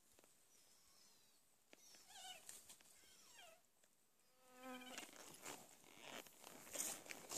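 Hen grouse giving faint, whining calls, several short wavering and falling cries in a row, as part of a broken-wing distraction display to draw intruders away from her nest. A few soft knocks near the end.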